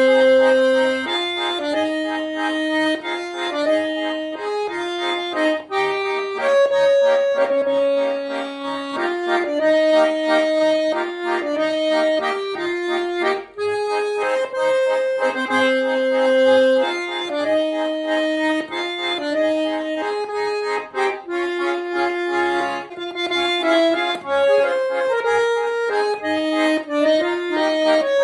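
Schwyzerörgeli, the Swiss diatonic button accordion, playing a folk tune: the melody moves in two parallel voices over short, faint bass notes.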